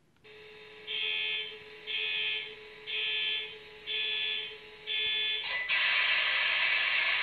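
The MTH HO scale Penn Central heritage diesel's onboard DCC sound system playing its startup sequence: a steady hum with an alarm beeping about once a second, five times, then the diesel engine sound starting up and running, louder, from near the end.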